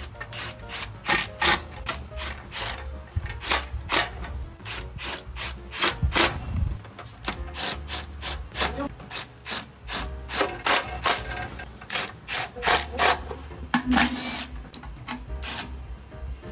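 Hand ratchet wrench clicking in quick runs of strokes, tightening the bolts of a motorcycle's front fender.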